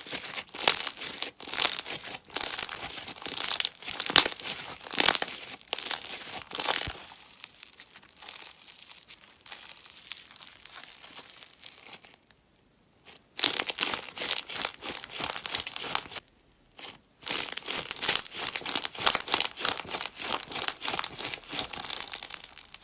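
Slime being squeezed and kneaded by hand, a dense run of small crackling clicks and pops. It goes softer for a few seconds in the middle and drops out briefly twice.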